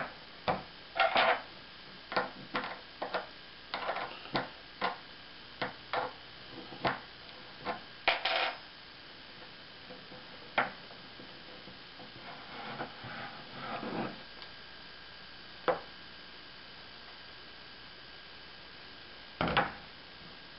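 A 7/16 wrench clicking and knocking against a paintball marker's airline fitting as the fitting is screwed in: sharp clicks about every half second for the first eight seconds, then a few scattered knocks.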